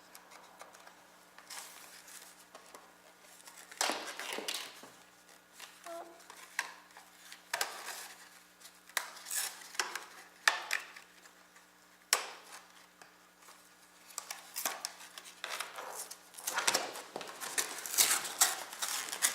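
Computer parts and hardware being handled on a work surface: scattered clicks, taps and light clatter with brief rustling, busier near the end.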